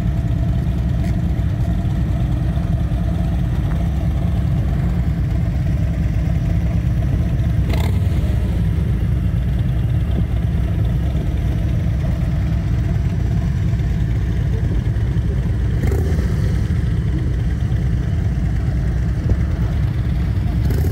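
Harley-Davidson V-twin engine running steadily at idle through Screamin' Eagle mufflers, a deep, even rumble.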